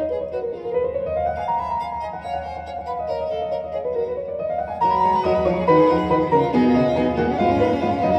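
Classical violin and piano music played through hi-fi loudspeakers and recorded in the room: a violin line of quick notes over piano, growing louder and fuller about five seconds in.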